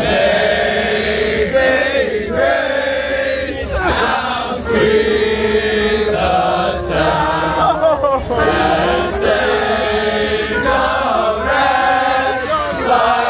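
A crowd of marching-band trumpet players singing a chant together in unison, in sung phrases with short breaks between them.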